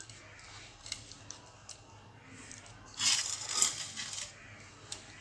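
Small clicks and taps of dishes and food being handled at a meal, with a harsh rustling, crackling burst about three seconds in that lasts just over a second.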